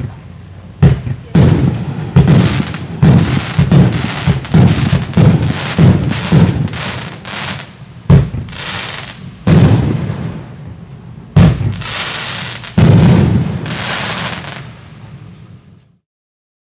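Multi-shot consumer firework going off, a rapid series of loud bangs about every half second to a second, some trailed by a crackling hiss, stopping abruptly near the end.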